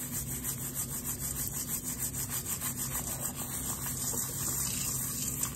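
Rhythmic scraping: something is rubbed back and forth in quick, even strokes, several a second, and it stops abruptly near the end.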